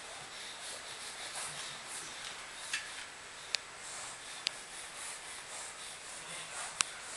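Soft scuffing footsteps of a toddler in footed pajamas walking on a hardwood floor, a few steps a second, with three sharp clicks: one in the middle, one a second later, and one near the end.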